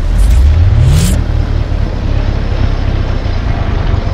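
Motorcycle engine running on the bike lying on its side, with a short rise in revs in the first second over a heavy low rumble. Two sharp clicks come in the first second.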